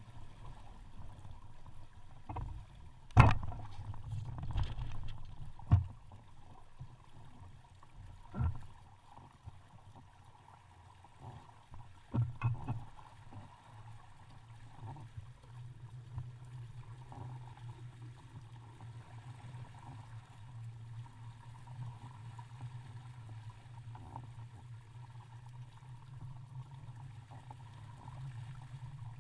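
Small sailboat underway: a steady low rush of water and wind against the hull, with a few sharp knocks, the loudest about three seconds in and more near six, eight and twelve seconds.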